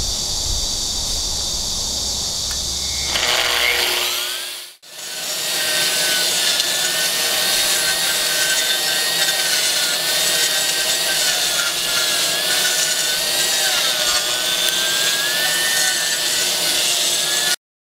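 AGP SM7 concrete grinder's 2200 W motor spinning up with a rising whine, then running steadily with a whine and hiss whose pitch wavers slightly as it grinds. There is a brief drop-out about five seconds in, and the sound cuts off abruptly near the end.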